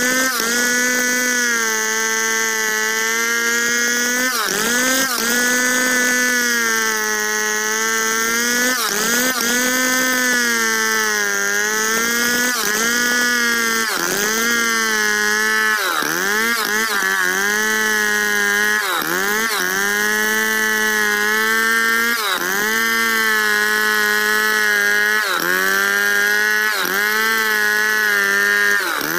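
Stihl 070 two-stroke chainsaw at full throttle, rip-cutting lengthwise through a squared log to free-hand mill lumber. Its pitch dips sharply every few seconds as the engine bogs under load in the cut and picks back up, and the dips come more often in the second half.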